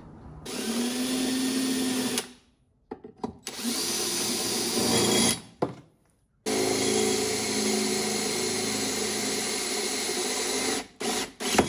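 Cordless DeWalt drill boring holes into a flat steel bracket bar. It runs three times, the last run about four seconds long, each time spinning up with a rising whine before settling into the cut. Brief trigger blips come in between, and a few clicks sound near the end.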